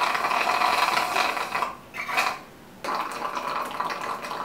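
Juice being sucked up a very long drinking straw: a bubbling, gurgling slurp that stops briefly twice near the middle before carrying on.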